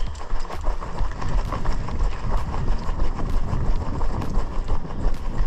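Running footsteps on gravel and paving at a steady stride, heard through a head-mounted action camera, with the wearer's own footfalls thudding and wind rumbling on the microphone.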